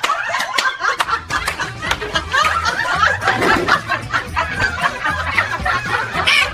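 Several people laughing and snickering in quick, choppy bursts.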